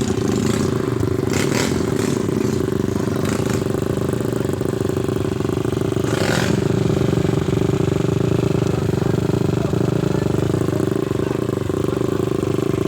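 Trail motorcycle engine running at a steady speed, with a few brief rushes of noise over it, the longest about six seconds in.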